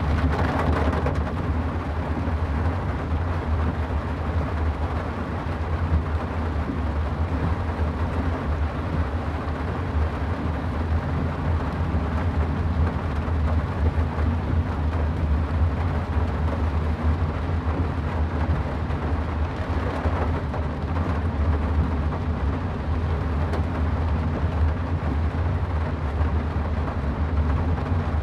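Car driving through rain on a wet road: a steady low rumble of engine and tyres under an even hiss of rain and road spray, with brief louder swells right at the start and again about twenty seconds in.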